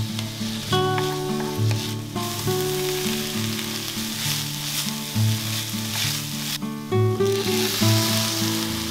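Diced red onion and then risotto rice sizzling in a Le Creuset enamelled cast-iron sauteuse, stirred with a wooden spoon. Near the end wine is poured in and the sizzling grows louder. Soft background music plays underneath.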